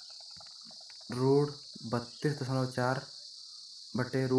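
A man's voice reading out a maths question in Hindi, in two spoken phrases, over a steady high-pitched hiss in the background.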